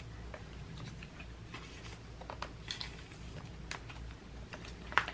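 Photocards being slid into the pockets of clear plastic binder sleeves: soft plastic rustling with scattered light clicks and taps, and a sharper click near the end.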